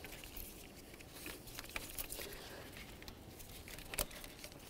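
Faint clicks and rustles of rubber and plastic as spark plug wire boots and electrical connectors are worked loose by hand, with one sharper click about four seconds in.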